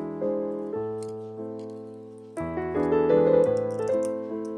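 Background piano music, with sustained chords that change every second or so and grow louder about two and a half seconds in.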